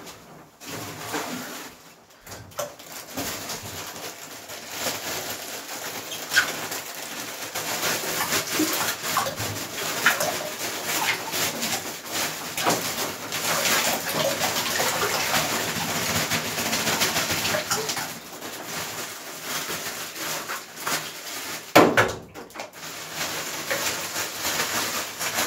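Ice cubes tipped from a plastic bag into a bathtub of water, clattering and splashing with a crackling rush that builds a few seconds in and holds for a while. A single sharp knock comes a little before the end.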